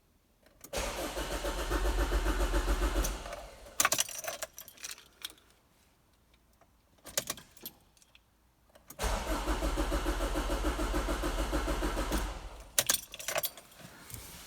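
Starter motor cranking the Mazda Premacy's 2.0-litre diesel engine twice, about three seconds each time, without it firing. The engine does not start because the fuel pump relay has burned contacts. Each attempt is followed by clicks and a jangle of the ignition keys.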